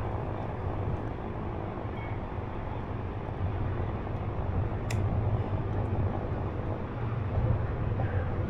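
Steady low rumble and hiss of wind and rolling noise from a moving Onewheel ride, with one sharp click about five seconds in.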